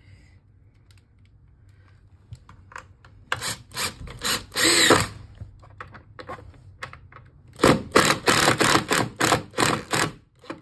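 Makita cordless impact driver driving long screws through a storm door closer's jamb bracket in short bursts. A few quick bursts and one longer run come about four to five seconds in, then a rapid string of short bursts from about eight to ten seconds.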